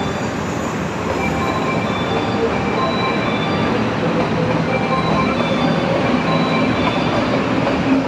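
Train moving close by, a steady dense rumble that grows a little louder about a second in, with short high squealing tones coming and going, typical of steel wheels on rail.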